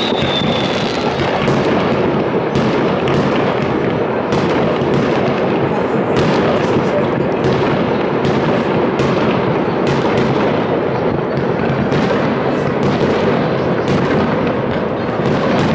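Many fireworks going off at once across the city: a continuous crackle of bangs and booms with frequent sharper pops. A high whistle fades out in the first second.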